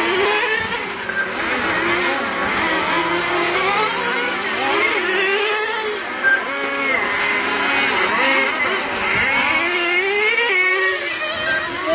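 Several 1:10-scale nitro RC touring cars racing together, their small two-stroke glow engines overlapping in a high whine. Each engine's pitch keeps rising and falling as the cars accelerate and lift off through the corners.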